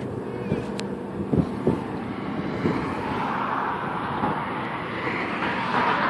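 Steady outdoor traffic noise with wind on the microphone, and a few short low thumps in the first three seconds.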